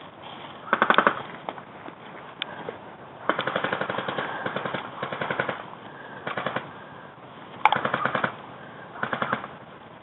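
Airsoft guns firing on full auto: five rapid bursts of evenly spaced clicks. The longest runs about two seconds, from a little after three seconds in.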